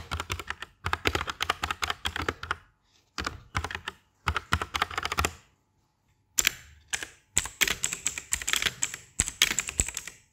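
Typing on a Redragon K631 Castor 65% mechanical keyboard with Huano Red linear switches and double-shot PBT keycaps. Quick runs of keystrokes with short pauses between them, the longest a little past halfway.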